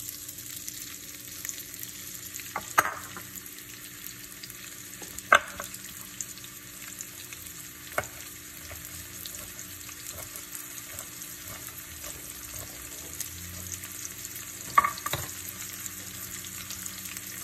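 Diced onion frying in olive oil in a stainless steel pan: a steady sizzle, with several sharp clicks scattered through it.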